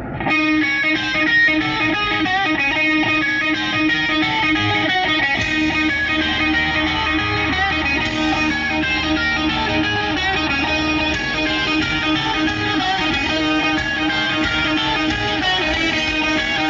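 Rock music playing back: an instrumental stretch with strummed electric guitar over a steady bass note.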